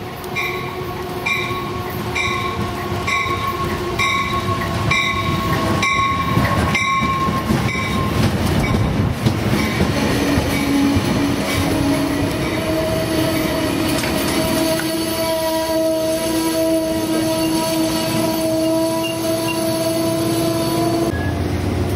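Amtrak passenger train pulling in along the platform: a bell rings about once a second for the first eight seconds over the rumble and clatter of the passing train, then steady squealing tones rise from the wheels and brakes as it slows.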